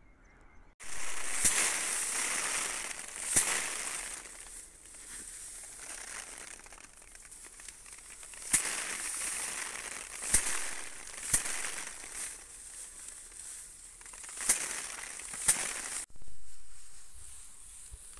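Hand threshing of paddy: sheaves of harvested rice are beaten against a threshing stone, each blow a sharp thwack, coming every one to three seconds, over the steady rustle of straw.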